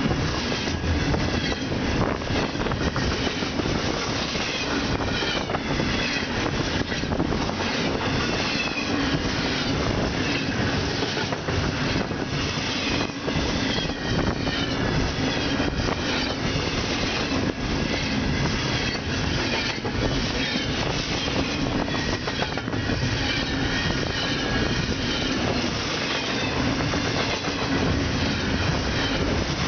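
Double-stack intermodal container train's well cars rolling past at close range: a steady loud rumble and rattle of steel wheels on rail, with quick clicks as the wheels cross rail joints.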